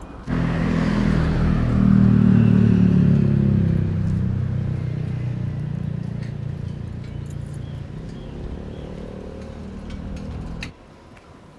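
A motor vehicle's engine running close by with a steady low drone. It comes in suddenly, is loudest two to four seconds in, fades gradually, and cuts off abruptly near the end.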